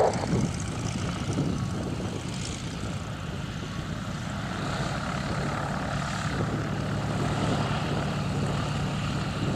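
Boeing Stearman biplane's radial engine idling as it taxis, a steady low drone from the propeller and engine, growing a little louder in the second half.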